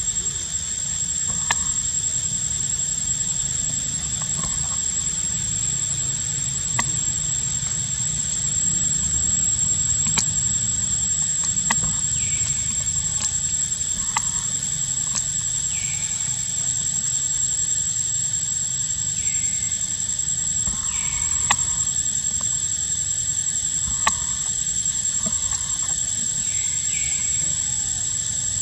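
A steady high-pitched insect whine without a break, with scattered sharp clicks and a few short falling squeaks in the second half.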